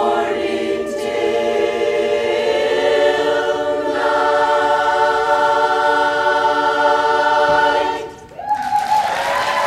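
Women's barbershop chorus singing a cappella in close harmony. They hold a long final chord that shifts and swells about halfway through, then cut off together; audience applause breaks out right after.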